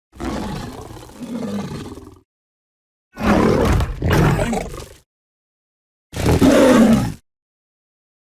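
Sabertooth cat (Smilodon) sound-effect roars made from combined lion and tiger roars: three separate roars with silence between them. The first is quieter and drawn out over about two seconds in two swells, the second comes in two loud pulses, and the last is a short, loud single roar.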